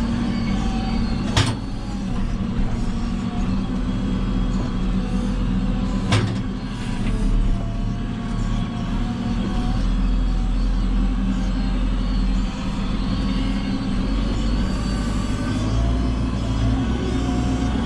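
JCB 3CX backhoe loader's four-cylinder diesel engine running steadily while it works. Two sharp knocks come about a second and a half in and about six seconds in.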